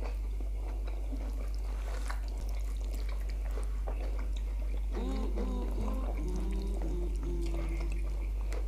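Close-up eating sounds of two people eating rice, stew and fried plantain with their hands: wet chewing, lip smacks and small clicks, over a steady low hum. About five seconds in, a closed-mouth 'mmm' hum in wavering notes runs for about three seconds.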